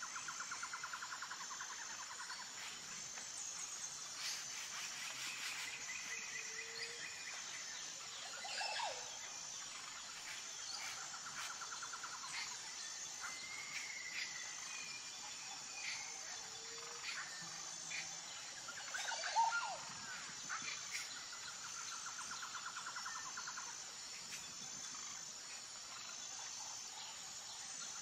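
Faint nature ambience: small birds chirping, with a short trill that recurs every ten seconds or so, over a steady high pulsing buzz of insects. One chirp about two-thirds of the way through stands out louder.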